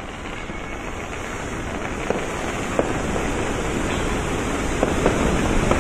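A large ship's propeller, half out of the water, churning muddy river water into a heavy wash: dense splashing with sharp crackles that grows steadily louder.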